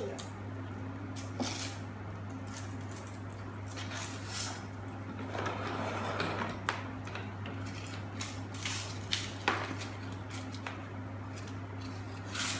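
Hands opening a surprise-egg toy capsule and its plastic wrapper: scattered small clicks and short rustles of plastic, with a longer rustle about halfway through, over a steady low hum.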